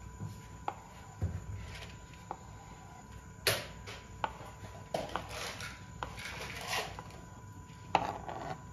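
Kitchen knife knocking on a plastic cutting board while boiled egg whites are sliced: irregular single knocks, roughly one a second, the sharpest about three and a half seconds in.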